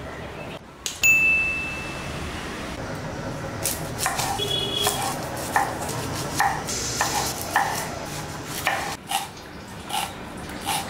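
A brass bowl rings once with a clear ping about a second in, fading over about a second. Then a cleaver chops onion on a wooden board, sharp knocks about once a second.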